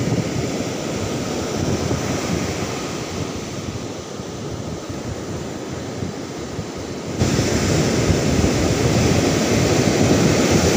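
Surf breaking and washing up a sandy beach, mixed with wind on the microphone. The rush grows louder about seven seconds in.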